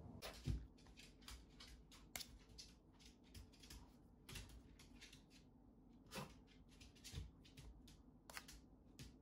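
A Shih Tzu's claws clicking and tapping on a wooden floor as it shifts about and stands up begging, several quick irregular clicks a second with a few soft thumps.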